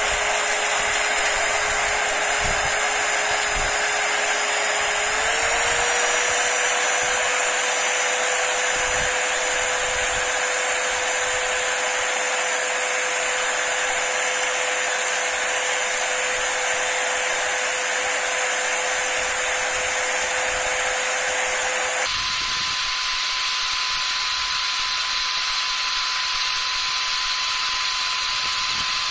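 A small electric power-tool motor runs steadily with a whine over a constant hiss while the steel screwdriver shaft is polished with fine P1000 sandpaper. The whine steps up slightly about five seconds in, then jumps sharply higher, with more hiss, about seven seconds before the end.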